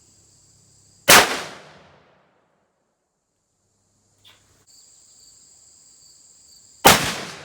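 Two loud shots from a CVA Paramount .45-calibre inline muzzleloader rifle, about six seconds apart. Each is a sudden crack with a trailing echo that dies away over about a second. A steady high chirring of insects is heard between the shots.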